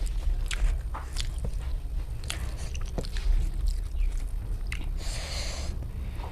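A person chewing and eating close to the microphone: a run of sharp wet mouth clicks and smacks, with a short hissing burst about five seconds in, over a steady low hum.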